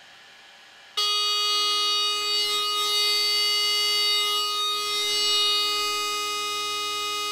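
Loud steady electronic tone from an ATmega microcontroller circuit played through a speaker, switching on suddenly about a second in at a fixed pitch with many overtones; a second, lower tone joins half a second later and both hold unchanged.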